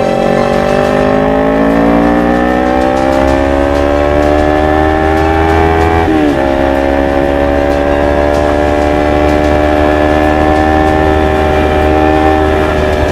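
Kawasaki Ninja 250 FI parallel-twin engine through a full-system Akrapovic GP exhaust, accelerating under load: the note rises steadily for about six seconds, drops sharply at a quick upshift, then holds and slowly climbs again in the next gear.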